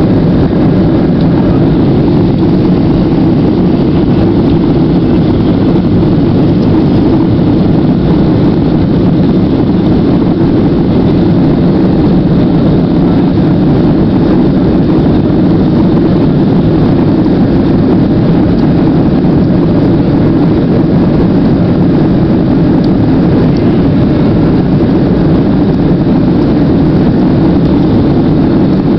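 Steady low noise of a Boeing 737's jet engines heard from inside the passenger cabin as the airliner taxis on the ground, level and unchanging.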